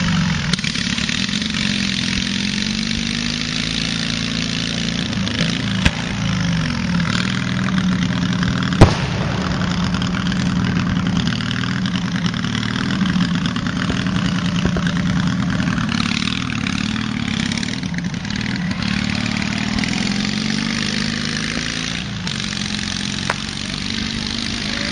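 An engine running steadily, wavering a little in pitch, with two sharp bangs, a smaller one about six seconds in and a louder one about nine seconds in.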